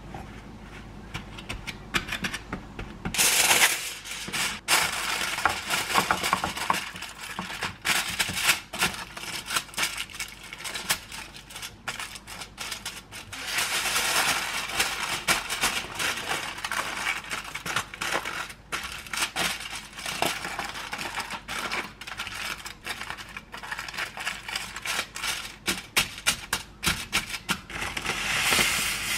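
Hands-on kitchen prep sounds: a paper towel rustling over raw shrimp, then aluminium foil crinkling as it is pressed into a pan, and coarse salt pouring from a bag near the end. Many small clicks and crackles throughout, with louder crinkling bursts a few times.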